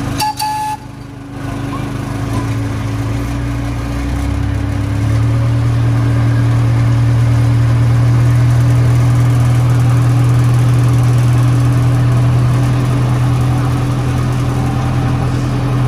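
Miniature park train's engine running steadily, heard from on board; its hum steps up in pitch about four to five seconds in and then holds. A few brief clicks come at the very start.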